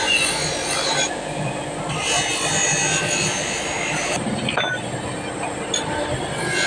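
Long rasping strokes of an abrasive worked against the steel of a spear head, in two stretches of about two seconds each, over a steady hum.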